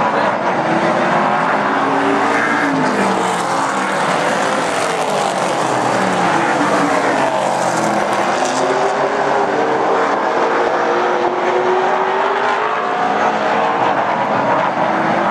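Several super stock race cars' engines running at racing speed, many engine notes overlapping, their pitches rising and falling as the cars pass and work the throttle.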